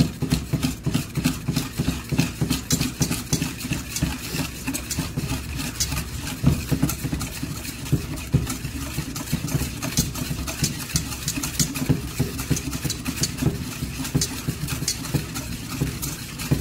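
Wire whisk beating a cream and condensed milk mixture by hand in a metal bowl: rapid, steady strokes with the wires ticking and scraping against the bowl.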